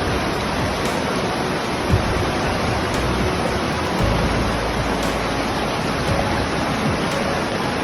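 Floodwater rushing, a steady noise with a short knock about two seconds in.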